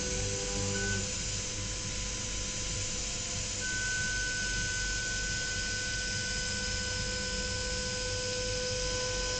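CNC machine milling aluminium: a steady spindle whine of several held tones over a hiss of cutting, with a higher tone setting in a little over a third of the way through and holding.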